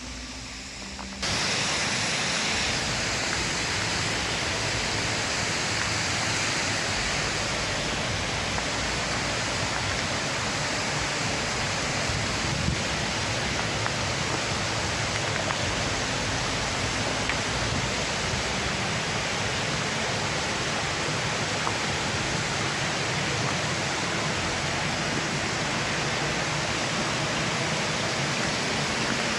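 Waterfall pouring, a loud, steady rushing that sets in suddenly about a second in and holds without change.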